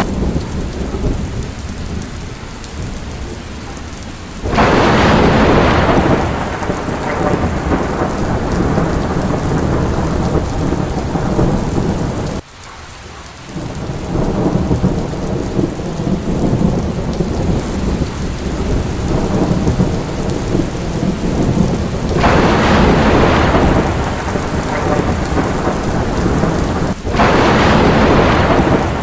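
Thunderstorm: steady heavy rain with thunder rumbling. Sudden louder crashes of thunder break in about four seconds in and twice near the end, and the sound drops away briefly near the middle.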